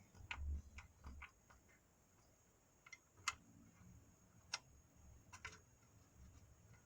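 Faint, scattered clicks and ticks of small metal parts and hand tools being handled during drum brake work, with two sharper clicks about three and four and a half seconds in, over near silence.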